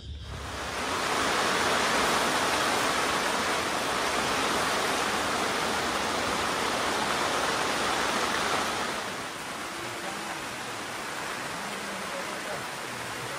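Heavy rain pouring down in a steady hiss that eases somewhat about nine seconds in.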